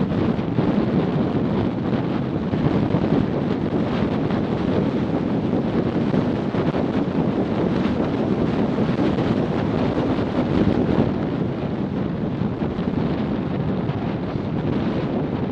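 Steady low rush of wind across the microphone of a small action camera carried by a macaw in free flight.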